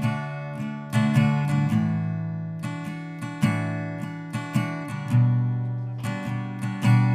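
Music: an acoustic guitar strumming chords, each chord ringing and fading before the next.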